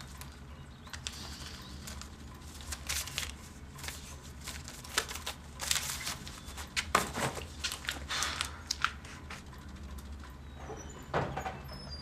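Scattered short knocks and clicks over a low steady hum.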